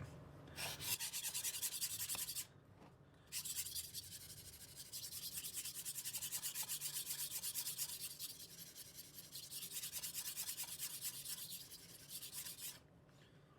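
Kitchen knife blade stroked quickly back and forth on a wet sharpening stone coated in slurry, a rapid, even scraping. It breaks off briefly about two and a half seconds in and again near the end. This is the second side of the edge being worked to raise a burr.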